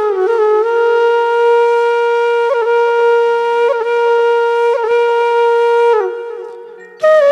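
Bamboo flute holding one long steady note, decorated with brief grace-note flicks about every second. The note fades away near the end, and a new flute phrase begins just after.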